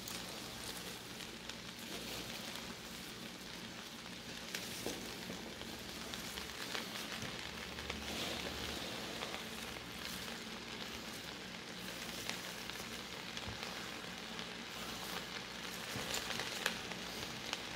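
Garlic and onion sizzling quietly as they saute in an enameled Dutch oven, with the rustle and light taps of chopped cabbage being scraped off a plastic cutting board into the pot.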